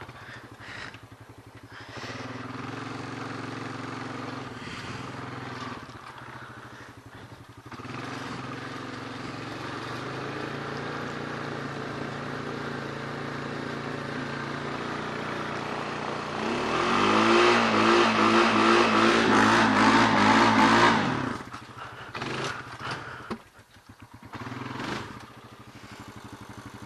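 Riding lawn mower engine running under way. About two-thirds of the way in it revs up louder and higher for several seconds, then drops back down.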